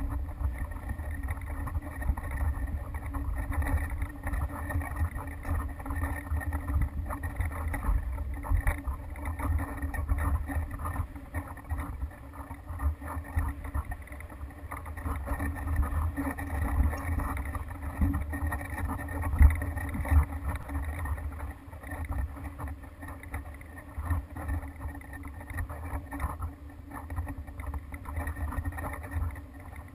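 Wind buffeting a GoPro's microphone as it hangs from a kite line high in the air: a gusty low rumble that swells and fades, with a sharper gust about two-thirds of the way through.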